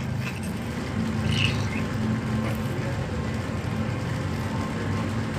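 Steady low background rumble, with a faint brief scrape or tap about a second and a half in.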